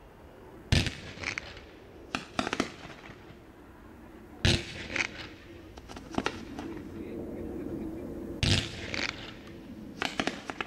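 Fireworks going off: a series of sharp bangs a second or more apart, several followed by a quick spray of smaller crackling pops.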